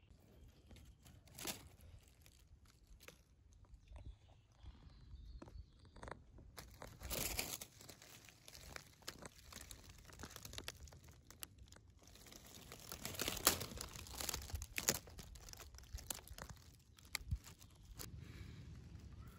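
Dry fallen leaves on the forest floor rustling and crackling irregularly as they are disturbed, with louder stretches about seven seconds in and again around thirteen to fifteen seconds.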